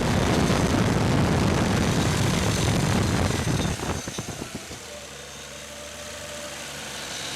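Nissan RB26 twin-turbo straight-six in an R33 Skyline GT-R held at raised revs, then dropping back to idle about four seconds in, the idle slowly building again near the end. The owner hears a front-end rattle, from the head or the fan, that he notices only between 3,000 and 4,000 rpm; its pitch stays the same with rpm while its volume changes.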